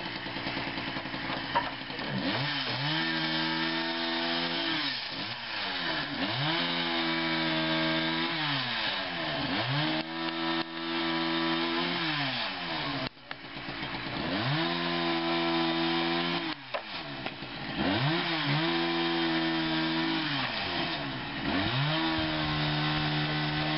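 Chainsaw engine revved up, held at speed for a second or two and let back down, about six times in a row, with a sharp knock just before the first rev.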